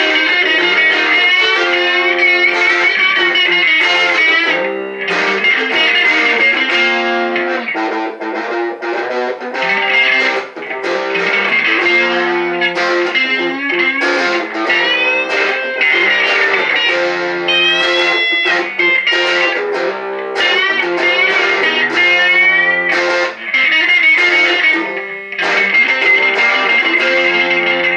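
Electric guitar played alone, a line of single notes with quick runs and a few bent notes, broken by short pauses.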